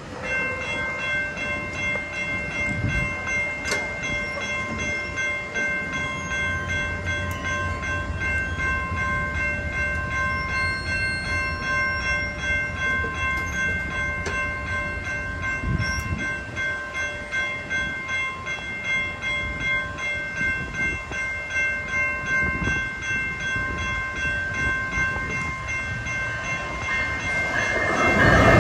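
Railroad crossing warning bells ringing steadily and pulsing as the crossing activates and the gate arms lower. Near the end an approaching train's rumble swells in over the bells.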